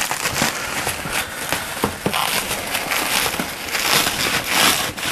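Plastic bubble wrap crinkling and crackling as it is peeled and pulled off a boxed replica rifle, louder near the end.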